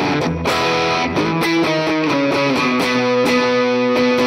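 Electric guitar played through a Valeton GP200 multi-effects unit on an overdrive preset: chords picked and strummed, then a chord left to ring from about halfway through.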